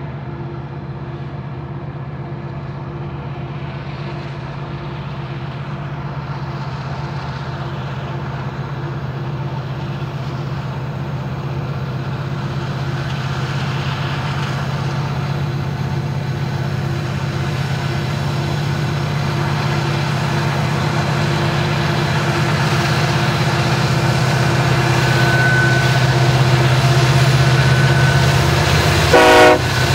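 EMD diesel locomotives working hard under load, pulling a coal train up a mountain grade. Their steady low engine drone grows louder as they approach, and rising wheel and rail noise builds with it. A short loud burst comes just before the end.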